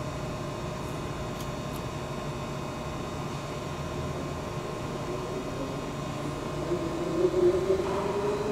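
Aronson HS45VF headstock welding positioner's variable-speed drive motor running with a steady hum and whine. About seven seconds in, the whine rises in pitch and grows louder as the drive speeds up.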